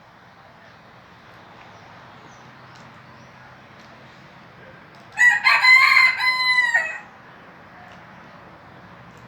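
A rooster crowing once, a single loud call of about two seconds that starts about five seconds in and drops at the end, over a steady low background hum.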